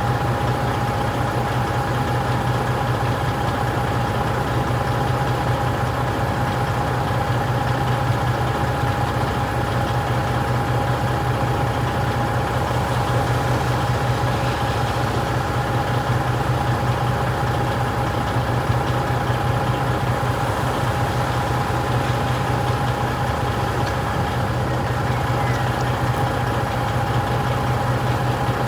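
Truck engine running steadily at a low, even speed, with a constant hum and a thin steady whine above it.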